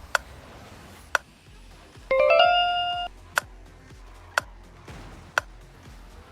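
Quiz-style background track: a sharp tick about once a second and a bright bell-like chime about two seconds in, over a low pulsing beat.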